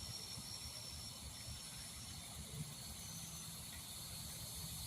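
Evening insect chorus: crickets trilling in a steady, faint, high-pitched hiss.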